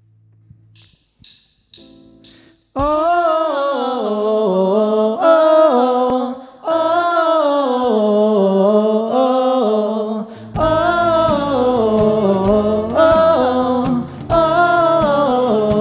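Live band opening a song. After a few faint notes, a wordless sung melody begins about three seconds in, gliding smoothly. About ten seconds in, bass, strummed acoustic guitar and percussion join it.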